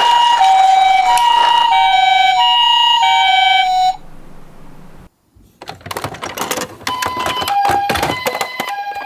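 Japanese ambulance hi-lo siren, two tones taking turns about every half second. It cuts off about four seconds in, and after a short gap comes a spell of clattering knocks, likely the die-cast miniature cars rattling down the slope, before the siren starts again near the end.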